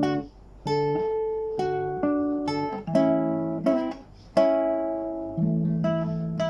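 Acoustic guitar strumming chords, each chord struck about once a second and left ringing to fade before the next.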